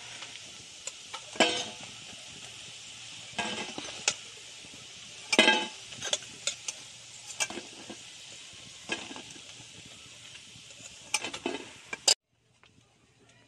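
Battered fish-roe fritters sizzling in hot oil in a metal kadai, with a metal spatula scraping and clinking against the pan as the pieces are turned and lifted out. The sizzle cuts off suddenly near the end.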